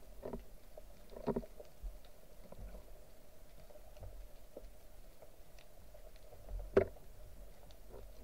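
Muffled underwater sound through a camera housing: a faint steady water hum with scattered small clicks, and a louder short knock about a second in and another near the end.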